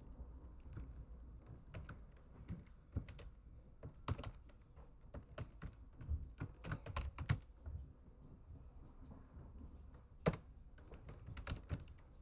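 Computer keyboard typing in short irregular bursts of key clicks, over a faint low hum.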